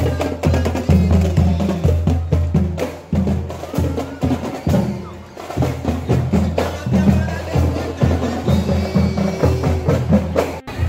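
Marching band drumline playing: bass drums and snare drums beating a steady, driving rhythm. The sound cuts off abruptly for an instant near the end.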